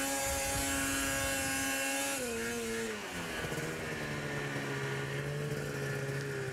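Engine running at high revs, held steady, then dropping a little after two seconds to a lower, steady speed.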